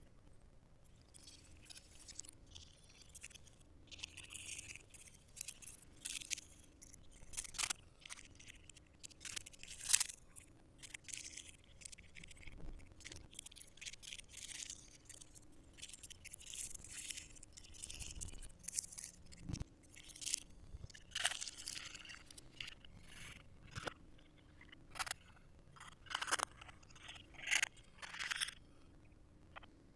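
Hands handling smartwatch packaging: thin paper and plastic wrapping rustling and crinkling, with scattered light scrapes and taps against the cardboard box insert, on and off throughout.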